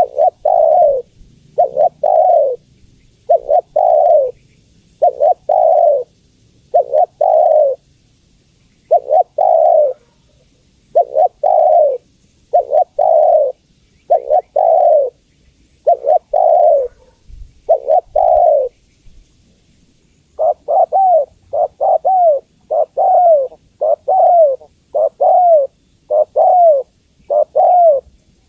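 Spotted dove cooing repeatedly, in short groups of low coos about every second and a half, then from about two-thirds of the way through in a quicker run of single falling coos. The uploader presents it as a female calling males.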